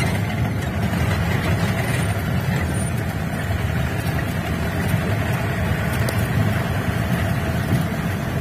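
Open-top off-road jeep's engine running steadily while driving along, a low even drone heard from inside the vehicle.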